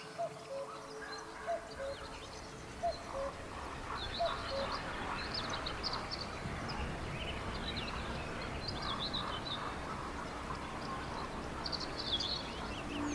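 Small birds chirping and twittering in scattered short flurries over a steady background hiss of outdoor ambience, with a few short lower notes in the first couple of seconds.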